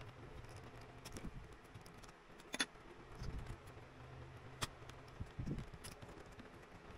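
Small plastic clicks and soft knocks from handling the Asus X756U laptop's battery and its cable connector, with two sharper clicks about two and a half and four and a half seconds in.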